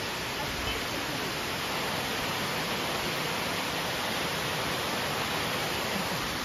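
Small two-step mountain waterfall cascading over rock into a pool: a steady, even rush of falling water.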